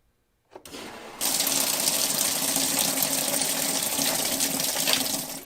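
Water rushing steadily. It starts faintly about half a second in, grows louder about a second in, and fades near the end.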